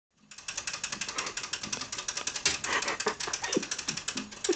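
Fast, even clicking, about eight sharp clicks a second, like a switch or button being worked over and over in a steady rhythm.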